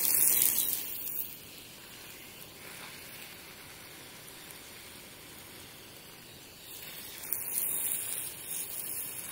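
Soft, even hissing, louder in the first second and again from about seven to nine seconds in.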